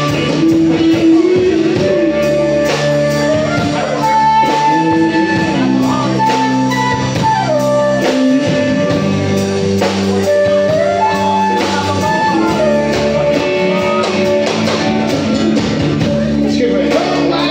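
Live band playing: a flute carries the melody over electric guitar, bass guitar and drums.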